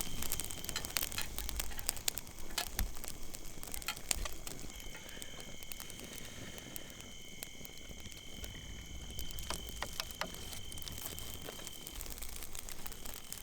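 Wood campfire crackling with irregular pops and clicks, over a steady high-pitched insect trill.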